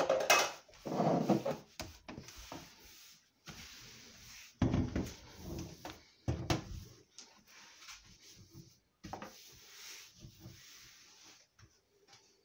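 Irregular knocks and rubbing from kitchen items being handled and set down, with two brief drops to complete silence.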